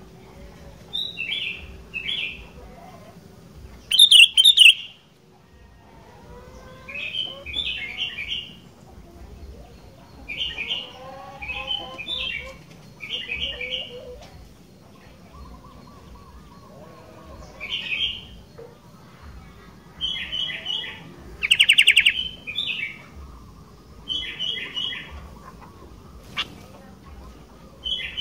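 Sooty-headed bulbul (kutilang) singing: short, bubbly warbled phrases repeated every second or two with pauses between, two of them much louder, about four seconds in and again near twenty-two seconds.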